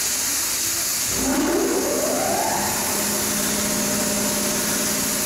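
A bed-liner spray gun hisses steadily on compressed air as Raptor liner is sprayed. About a second in, a motor starts up with a rising whine that settles into a steady hum.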